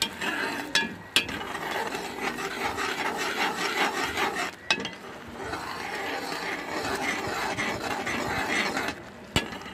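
A spoon stirring and scraping around a metal pot of boiling gravy: a steady rough rubbing, with a few sharp knocks of the spoon against the pot.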